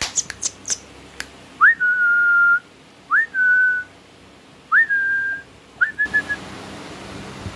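A person whistling four times. Each whistle slides up quickly, then holds on one note, the last one short and broken. A few sharp clicks come first, and a steady hiss takes over near the end.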